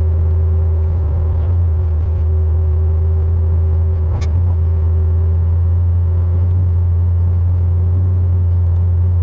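GM LS V8 with its Displacement on Demand system deleted and not yet tuned, running at a steady cruise with the exhaust cutouts closed: an even low drone with a steady higher tone over it.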